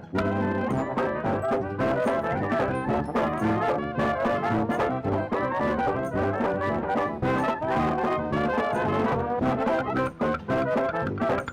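Background music: upbeat brass-band tune with trombone and trumpet over a steady beat.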